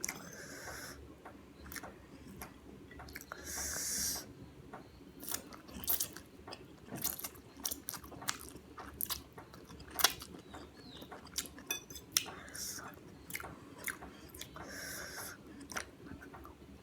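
A person chewing and eating Indo-Chinese food, with many wet mouth clicks and smacks. There are a couple of brief hissy slurps or rustles near the start and a sharper click about ten seconds in.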